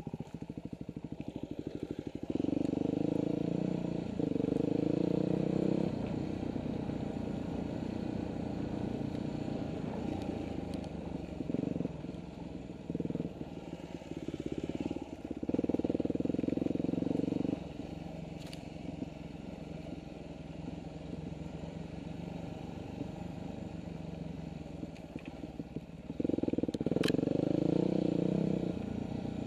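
Dirt bike engine running as it is ridden along a rough wooded trail, the engine note swelling louder for a few seconds at a time, about two seconds in, about halfway through, and near the end.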